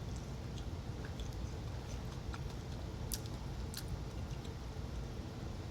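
Close-miked chewing of sushi: soft wet mouth sounds with scattered small clicks, two sharper ones a little past the middle, over a steady low hum.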